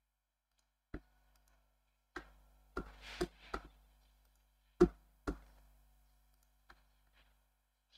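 Irregular clicks and knocks from working a computer's keyboard and mouse, about eight of them, bunched near the middle, the loudest a little past halfway.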